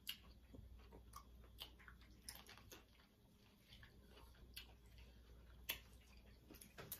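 Faint eating sounds over near silence: scattered small clicks and crackles as boiled shrimp are peeled by hand and chewed, the sharpest one right at the start and another a little before the end.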